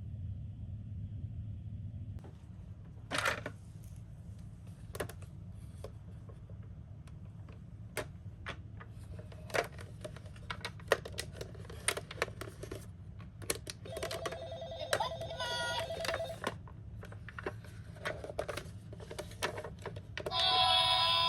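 Toy ambulances clicking and clattering as they are handled, over a steady low hum. Short electronic toy-siren tones sound about two-thirds of the way in, and a louder electronic siren tone starts near the end.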